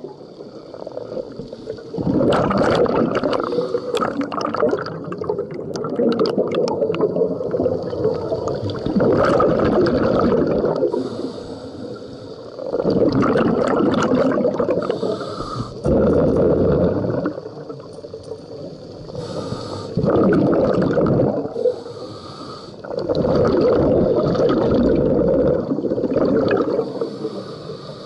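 Scuba regulator breathing underwater: rough, gurgling surges of exhaled bubbles lasting a few seconds each, alternating with quieter inhalations in a slow repeating cycle.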